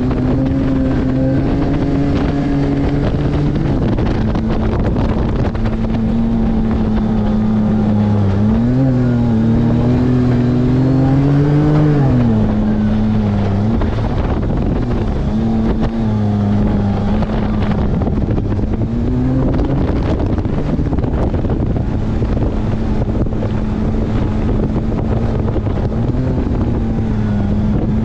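Side-by-side (UTV) engine running under load at fairly constant high revs. Its drone climbs in pitch for a few seconds near the middle, then drops, and dips briefly a few times as the throttle eases.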